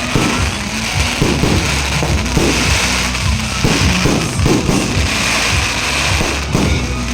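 Fireworks exploding one after another, a run of sharp bangs a couple of times a second, with music playing underneath.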